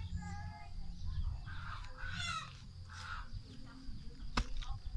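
A long-handled hoe chopping into clay soil, with one sharp strike at about four and a half seconds. Bird calls sound over it during the first half.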